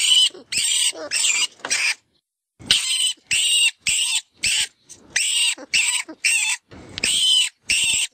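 FoxPro 'Vermin Pest Control' rat distress call, a recorded rodent squeaking in distress as used to call in foxes: a rapid series of short, high-pitched squeals, about two to three a second, with a brief pause about two seconds in.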